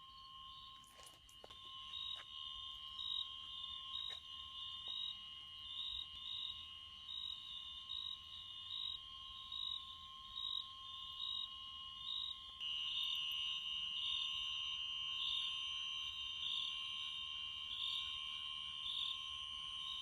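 Night insect chorus: several steady high-pitched trills, with a chirp repeating about one and a half times a second over them; a louder trill joins about two-thirds of the way through.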